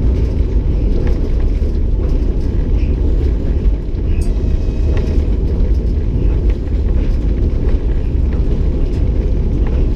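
EP20 electric locomotive running at speed, heard inside the driver's cab: a steady low rumble with a few faint clicks.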